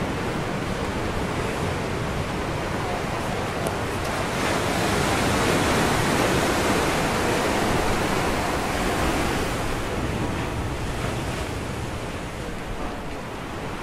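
Ocean surf breaking and washing against a rocky shoreline: a continuous rush that swells about a third of the way in and eases off again near the end.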